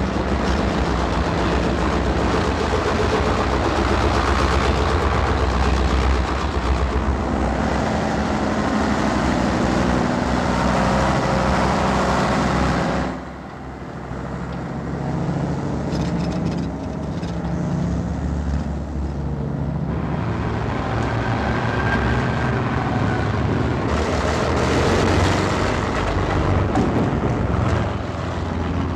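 Motor vehicle engines running steadily, like heavy trucks on the move, with a brief drop in loudness about halfway through before the engine noise returns.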